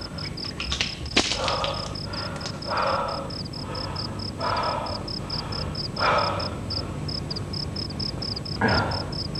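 Crickets chirping steadily, about three high chirps a second, with several short groans from a man at intervals over them.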